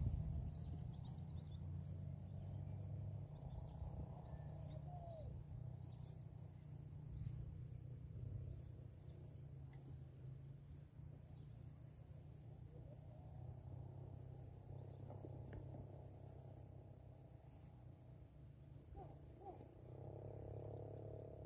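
Swamp ambience: a steady, high-pitched insect drone with a low hum underneath and faint scattered chirps, then frogs croaking near the end.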